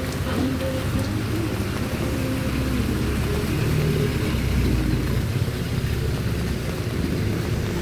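A motor vehicle's engine running close by, its rumble swelling about halfway through, over a steady hiss of rain and general market bustle.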